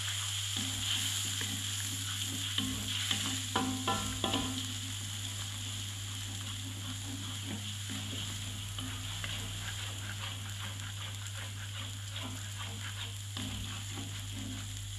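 Eggs and ground chilli spice paste frying in an aluminium wok with a steady sizzle, while a spatula stirs and scrapes against the pan; a few louder strokes come about four seconds in.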